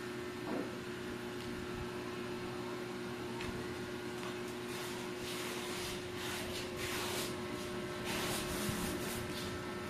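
Steady hum of a running household appliance with a soft hiss, and a few brief faint rustles in the second half.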